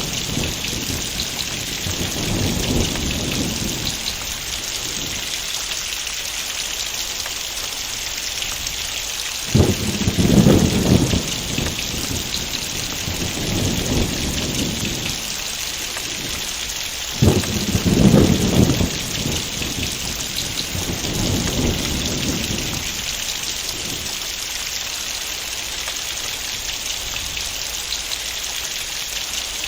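Heavy rain falling steadily, with rolls of thunder: a low rumble that starts suddenly about ten seconds in and another a little past halfway, each fading over a few seconds.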